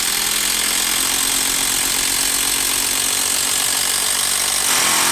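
Kobalt 24-volt brushless quarter-inch hex impact driver hammering steadily as it drives a long TimberLOK timber screw into a log round, getting a little louder near the end as the screw goes deeper.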